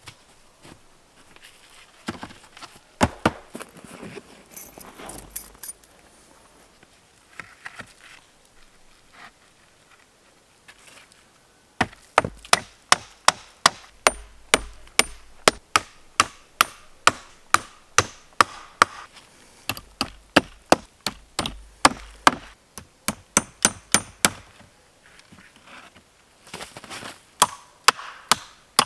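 Nails being hammered into old wooden pallet boards: a long run of sharp, even strikes, about two to three a second, in bouts separated by pauses.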